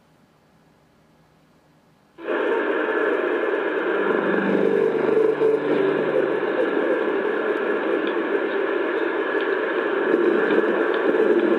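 A low-fidelity recording of a steady noisy roar that starts suddenly about two seconds in, after near silence, with a low moaning tone under it from about four to seven seconds in: one of the viral 'strange sounds' recordings said to be the earth groaning.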